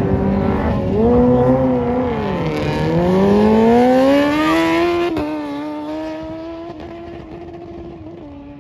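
A drag-racing vehicle's engine revving, dipping, then climbing steadily in pitch as it launches and accelerates down the strip. A sharp click comes about five seconds in, after which the engine note holds steady and fades as the vehicle moves off.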